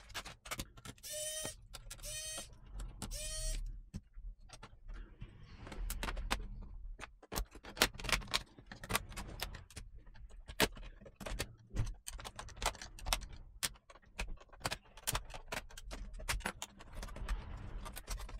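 Small electric precision screwdriver running in three short whirs as it backs out the laptop's bottom-cover screws. A long run of light clicks and rattles follows, from screws and the plastic case being handled.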